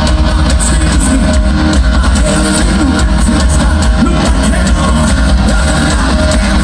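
Live hard rock band playing loud through a concert PA: distorted electric guitar, pounding drums with cymbals, and heavy bass, picked up from the crowd.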